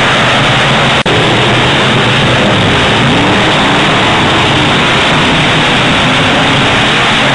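Thunder Car stock cars' engines running hard as the pack races around a dirt oval, a loud, steady engine noise with a very brief dropout about a second in.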